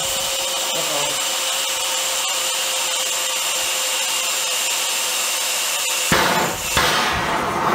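Homemade propane micro jet burner's high-velocity air jet hissing steadily with a thin whistle while unlit. About six seconds in the swirled air and propane catch from the hand torch with a sudden low whump, and the burner runs with a loud low rushing combustion noise.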